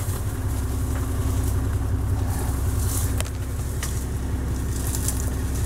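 Safari jeep's engine running with a steady low hum.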